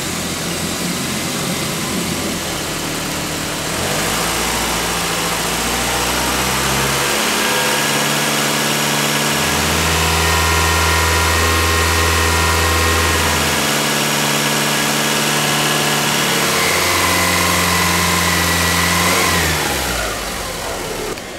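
Car engine running just after starting, held at a raised idle whose speed shifts up and down in steps several times, then drops near the end. It is warming up while air is bled from the freshly refilled cooling system.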